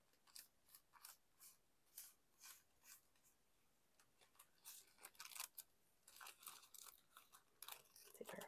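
Thin stamped tissue paper being torn by hand along a line wetted with a brush, which makes it tear easily: a run of faint short rips and rustles, coming thicker in the second half.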